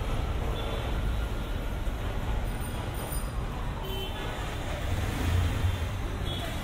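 Dense street-traffic din from a crowd of CNG auto-rickshaws and other vehicles idling at a railway level crossing, heard as a steady low rumble. A couple of short horn toots come through, about half a second in and again about four seconds in.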